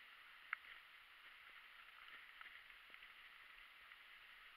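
Near silence: a faint steady hiss, with one sharp click about half a second in and a few fainter ticks after it.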